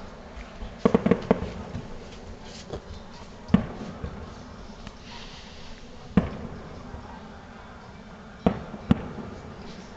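Fireworks display, shells bursting with sharp bangs: a quick run of three about a second in, single bangs near three and a half and six seconds, and two more close together near the end.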